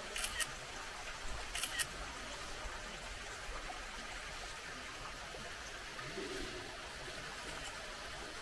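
Steady trickle of water from the pond in a bear enclosure, with two quick double clicks in the first two seconds.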